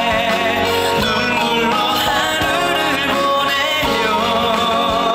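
A man singing a song into a handheld microphone over instrumental accompaniment, heard through a concert hall's sound system.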